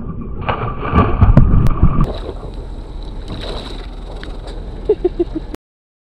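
Splashing and sloshing as two blackbelly rosefish are dropped into the sea, with wind on the microphone. The loudest part comes from about half a second to two seconds in. A few short pitched blips come just before the sound cuts off abruptly, about five and a half seconds in.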